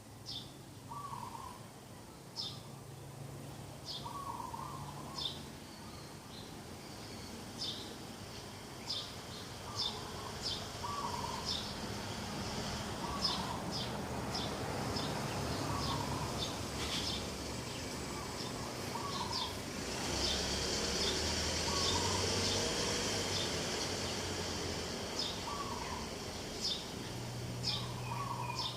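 Several birds singing and calling: many short, high chirps in quick irregular series, with a lower, softer repeated call every second or two. A steady background hiss swells for a few seconds past the middle.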